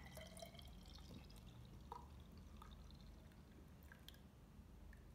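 Faint pouring of a thick, frothy blended piña colada from a blender jar into a glass, with a few soft drips and ticks.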